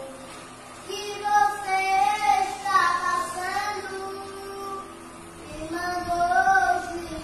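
A young boy singing a worship song (louvor) with long held notes. He sings one phrase from about a second in until nearly five seconds, pauses briefly, then sings another phrase near the end.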